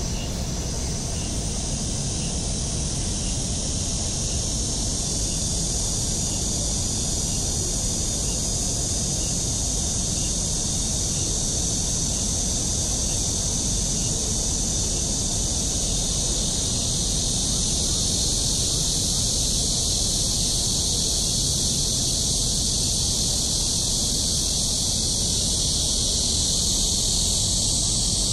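Steady outdoor background noise: a constant high hiss over a low rumble, with no distinct events, growing slightly louder toward the end.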